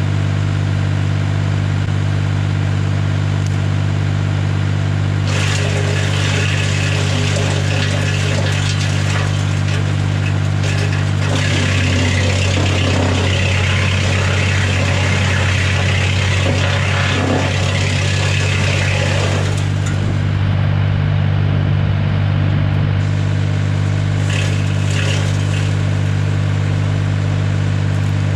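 Tractor engine running steadily, driving a BX52 PTO-driven wood chipper through its power take-off, with the chipper crunching and shredding dead branches in spells: a long stretch from about five seconds in to about twenty, heaviest in the middle, and a short burst near the end.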